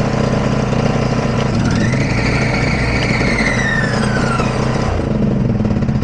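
Ride-on mower engine running steadily, with a whine that rises and then falls away about two to four seconds in. The mower has a belt fault that the owner takes for a dropped or displaced belt, possibly the cutting-deck drive belt.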